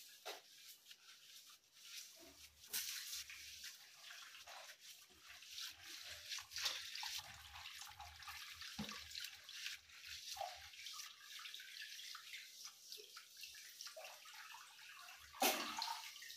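Rice being rinsed by hand in a bowl of water: faint, irregular swishing and splashing, with a louder splash near the end.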